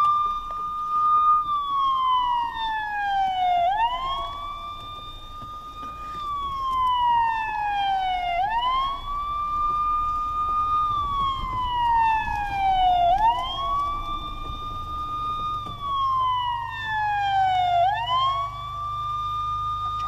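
Electronic police-siren wail: each cycle climbs quickly, holds high for a moment, then slides slowly down, repeating about every four and a half seconds.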